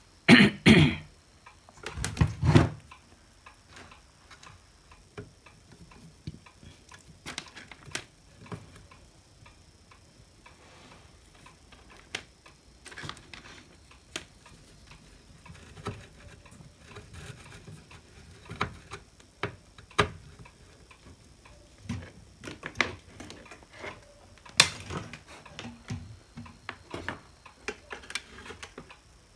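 Scattered small clicks and taps of hands handling and fitting the wiring in a hot air gun handpiece, with a couple of louder handling noises in the first few seconds.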